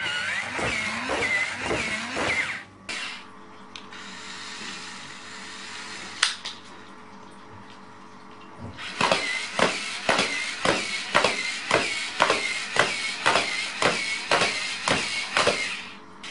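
A toy robot's small electric motor whirring in wavering bursts, then, from about nine seconds in, a regular whir-and-click cycle about twice a second, like a walking mechanism stepping.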